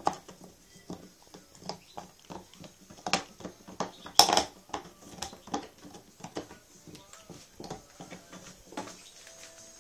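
Pit bull gnawing a raw beef bone: irregular crunches and sharp cracks of teeth on bone, the loudest about three and four seconds in, fading out near the end.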